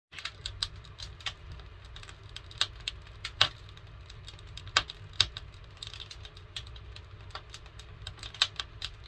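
Wood fire crackling and popping, with irregular sharp pops from resin pitch in old Douglas fir firewood, a few of them much louder, over a low steady rumble.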